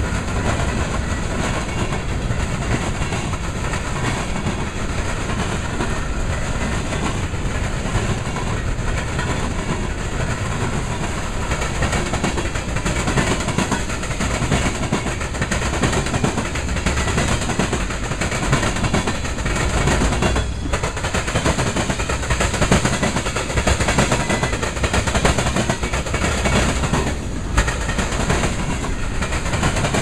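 Freight train cars rolling steadily past: a continuous rumble of steel wheels on rail with a rapid clickety-clack as the wheels cross rail joints and the diamond crossing.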